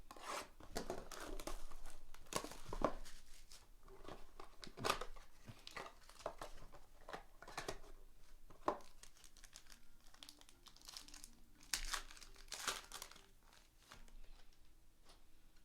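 Plastic trading-card pack wrapping being torn open and crumpled, an irregular crackling and crinkling that goes on in fits and starts.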